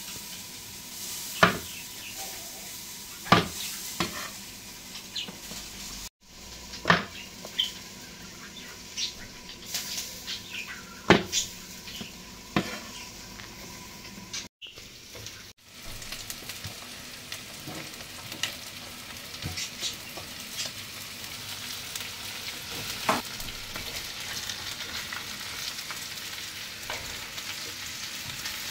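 Chicken frying with a steady sizzle in a saj pan, while a utensil stirs it and strikes the metal pan with sharp clinks every few seconds. The sound breaks off briefly twice.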